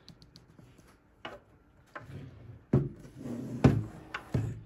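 A handful of knocks and thumps as a metal display housing is handled and turned around on a wooden tabletop, the loudest about three-quarters of the way in.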